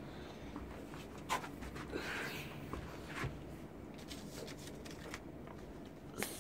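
Origami paper being handled and folded: a few quiet, crisp crackles of paper, with a soft rustle about two seconds in.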